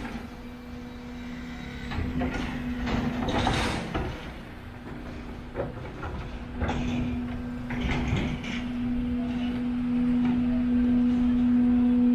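A steady low hum that grows louder over the last few seconds, with scattered street noise around it.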